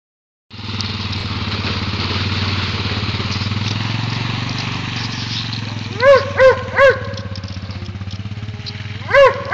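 ATV engine running steadily as the quad rides off, its note easing a little after the middle as it draws away. A voice calls out three short times about six seconds in and twice more near the end.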